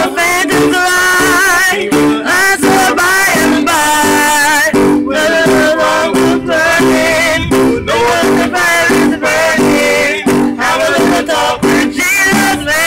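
Live amplified music: a man singing into a microphone over an electric keyboard played through small amplifiers, loud and continuous.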